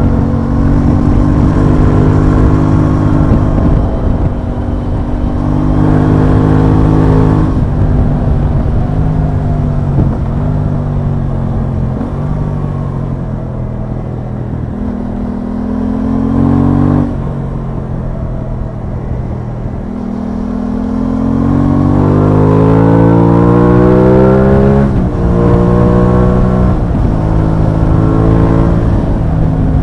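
Aprilia Tuono 660's parallel-twin engine running on the road. Its pitch holds steady in stretches and climbs through a long run of acceleration. The pitch drops suddenly at the gear changes, once a little past halfway and again near the end, over rushing wind and road noise.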